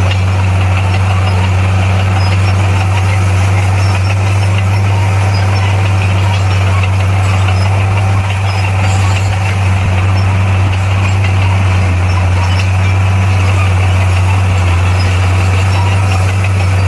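Heavy earthmoving machine's diesel engine running steadily, a constant low drone with no change in speed.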